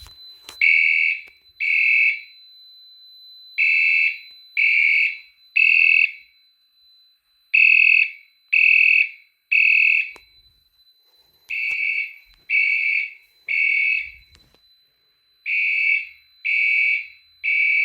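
Fire alarm horn sounding the temporal-three evacuation pattern: three half-second beeps, a pause, then again, repeating. It is the system in alarm after a smoke detector was set off in a test.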